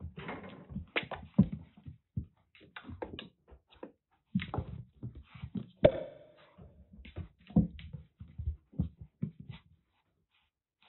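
Kitten playing on a wooden floor: irregular taps, scrabbles and soft thumps of paws and claws as it bats and pounces, with a sharper knock that rings briefly about six seconds in.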